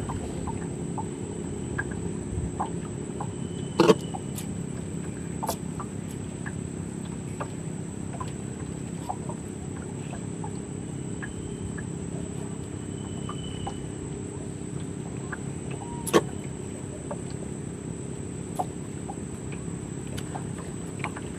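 Outdoor ambience: a steady low hum under a continuous high insect-like whine, with scattered small clicks, two sharp knocks about 4 and 16 seconds in, and a few faint short bird calls.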